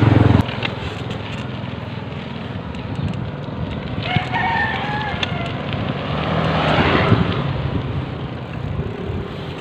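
A rooster crows once, a drawn-out call about four seconds in, over a steady rushing background of wind and riding noise.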